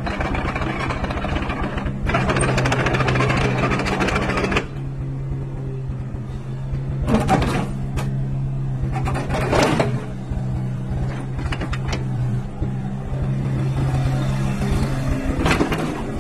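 Hitachi ZX70 excavator's diesel engine running at a steady speed. A louder rushing noise lies over it for the first few seconds and again near the end, with two short surges in between.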